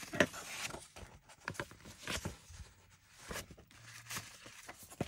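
Paper journal pages rustling and shuffling as they are handled, in a series of irregular rustles with a few light knocks.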